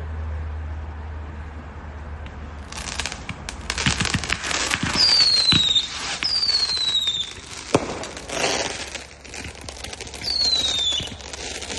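Fireworks going off. After a low steady rumble in the first few seconds, a dense run of crackling pops and bangs begins. Short falling whistles recur several times, and one sharp bang stands out near the middle.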